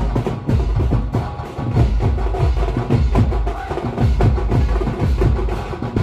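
Band party music with fast, driving percussion, including heavy bass-drum beats and Octapad electronic drum-pad strikes, and a melody line held over the top.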